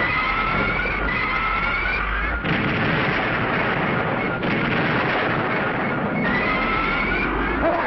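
A kaiju sound-effect cry that rises in pitch, heard at the start and again near the end, with explosion effects between the two cries, all over background music.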